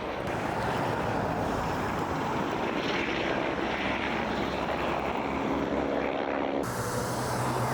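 Steady drone of a firefighting air tanker's propeller engines. Near the end it switches abruptly to a lower, steadier hum.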